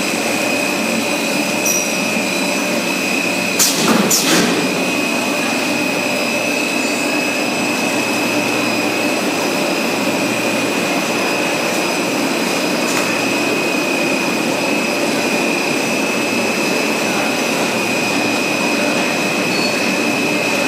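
Stretch film cast line running: a steady mechanical drone and hiss with a constant high whine over it. Two sharp knocks come about four seconds in.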